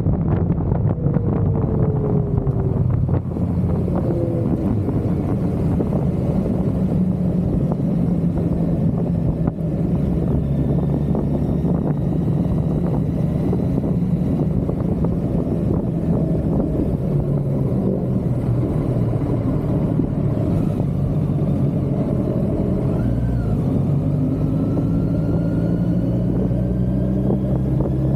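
Kawasaki Versys 1000's inline-four engine running at road speed, a steady drone mixed with wind and road rush. Its pitch drops near the start as the bike slows off the motorway and climbs again near the end.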